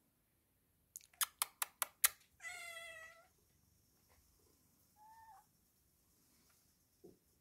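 Domestic cat meowing: one meow about half a second long, then a shorter, quieter meow about two seconds later. Just before the first meow comes a quick run of six sharp taps, louder than the meows.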